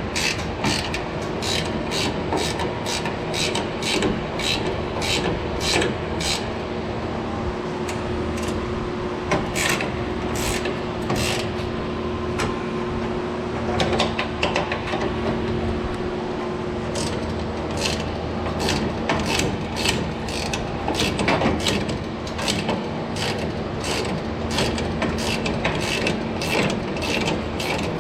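Hand ratchet wrench clicking in a steady rhythm, about two clicks a second, as bolts are turned; it pauses for several seconds in the middle and resumes. A steady low hum runs underneath.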